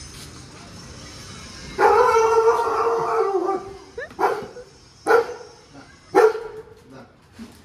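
German Shepherd howling for about two seconds, then giving three short barks about a second apart, an excited greeting for someone arriving home.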